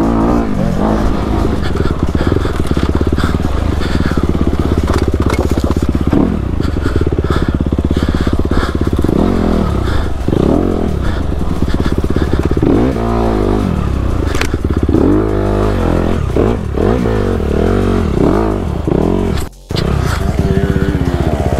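Honda CRF250RX's single-cylinder four-stroke engine heard close up from the rider's helmet, its pitch rising and falling as the throttle opens and closes and it climbs through the gears. The sound drops away for an instant near the end.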